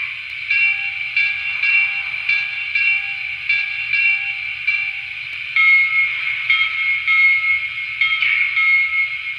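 Sampled locomotive bell from the Lionel LionChief Plus 2.0 Alaska Railroad 0-6-0T model's onboard sound system, ringing steadily through its small speaker. About halfway through it switches to a lower bell pitch and rings a little slower, one of the five selectable bell pitches. A steady hiss runs underneath.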